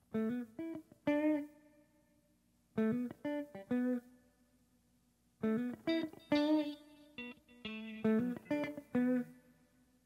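Solo guitar playing short phrases of single plucked notes, with silent gaps between them.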